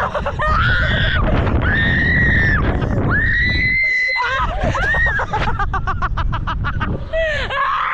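Women screaming in bungee free fall: a string of long, high screams with a fast pulsing cry about six seconds in, over heavy wind rush on the camera microphone.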